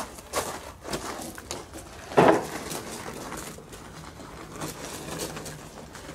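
Scattered knocks and clatter, with one loud thump a little over two seconds in.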